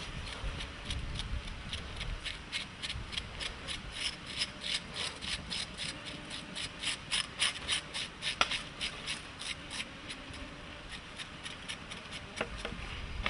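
Small knife scraping over a piece of wild boar in quick, short rasping strokes, about five a second, loudest around the middle, with one sharper knock a little past halfway.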